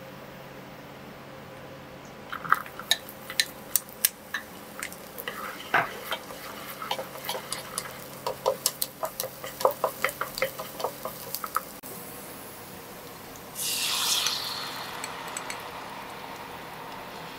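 Wooden chopsticks stirring chopped shallots and garlic in a small ceramic-coated pan of hot oil, clicking and tapping against the pan many times in quick succession. About two-thirds of the way through, sauce hits the hot pan with a loud sizzle that quickly dies down to a soft simmer.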